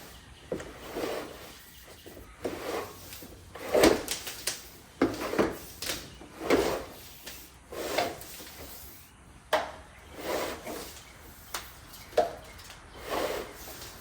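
Electrical cable being pulled through drilled holes in wooden barn framing, rubbing and scraping in a dozen or so short pulls, with a sharp click twice in the second half.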